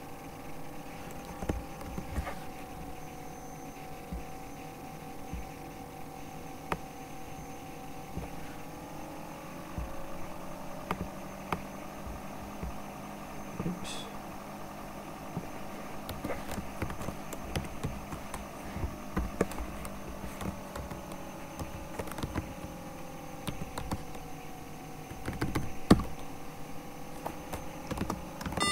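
Steady hum of a computer's cooling fan, its pitch drifting slightly up and down, with scattered clicks of typing on a keyboard.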